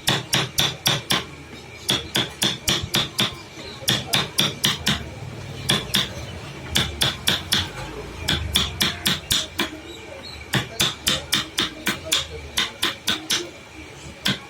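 Rapid hammer taps on a woodworking job, about five strikes a second in short runs of five to eight, with brief pauses between runs.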